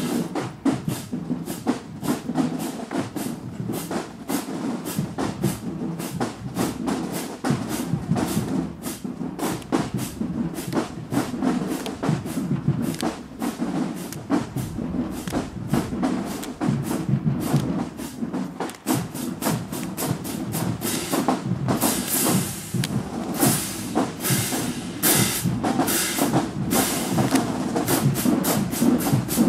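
College marching band drumline playing a marching cadence: fast, steady drum strokes that grow louder and sharper about three-quarters of the way through.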